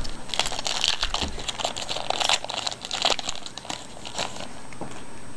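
Foil wrapper of a hockey card pack crinkling and crackling as it is handled and torn open, a busy run of sharp crackles over about the first three seconds that then dies down to a few faint ticks.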